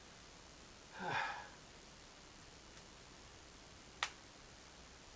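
A man's short sigh or breathy vocal sound about a second in, falling in pitch, then a single sharp click near four seconds, over quiet room tone.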